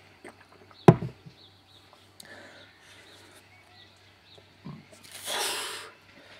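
A tall drinking glass set down on a slatted garden table: one sharp knock about a second in. Near the end comes a hissing rush about a second long.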